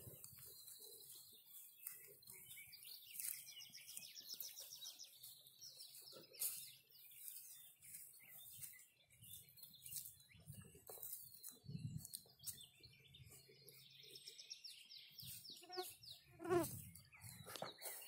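Small songbirds singing high, rapid trills over and over, with soft footsteps through grass. Near the end a louder short pitched call stands out above the birdsong.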